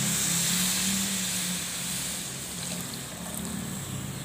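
Coconut milk pouring into a hot wok onto fried spice paste, a hissing sizzle that swells about half a second in and then slowly fades. A steady low hum runs underneath.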